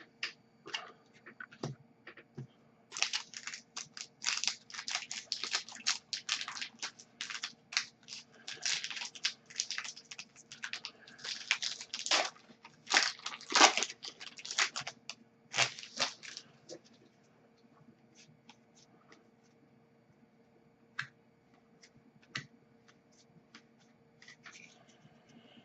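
An Upper Deck hockey card pack wrapper being torn open and crinkled: a dense run of tearing and crackling for about fourteen seconds, then only a few faint clicks.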